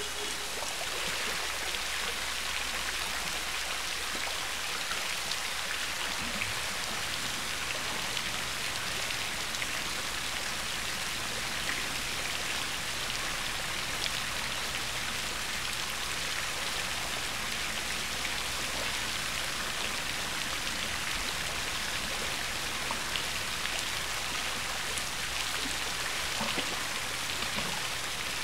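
Steady hiss and patter of pool water splashing and lapping close to the microphone at the pool's edge.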